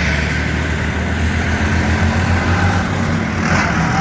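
Farm tractor's diesel engine running with a steady low rumble.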